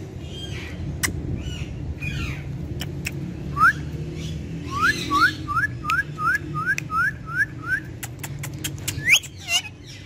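Rose-ringed (Indian ringneck) parakeet giving a run of short rising whistled chirps, about three a second, with a louder rising whistle near the end. Sharp clicks and a steady low hum sit underneath.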